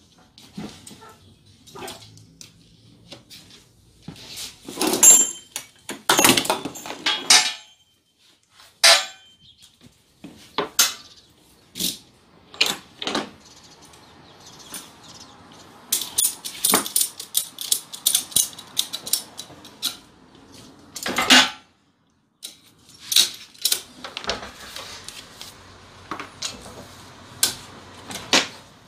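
Scattered metal clanks, knocks and rattles from a steel hand pallet truck and its tie-down hooks and straps being handled on a van's load floor, with a quick run of clicks about halfway through and a loud clank a few seconds later.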